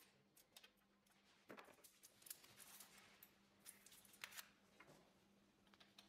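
Faint handling noises: scattered clicks and scrapes of hands adjusting a road bike's saddle and seatpost, over a low steady hum.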